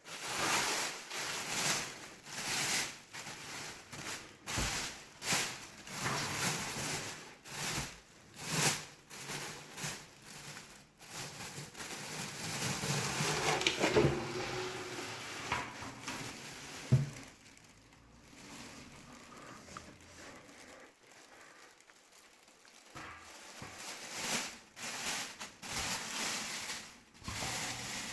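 Packaging being handled and pulled off during the unboxing of a mash kettle: short bursts of rustling, rubbing and crinkling, with two sharp knocks about two-thirds of the way through.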